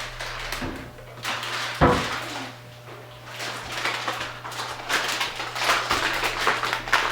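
Crackly rustling and handling noise with a single knock about two seconds in.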